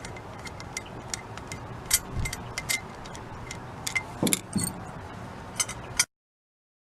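Light metallic clicks and clinks, with a few soft knocks, from small parts of a John Deere DLTX-53 carburetor being handled while the float is refitted. The sound stops abruptly near the end.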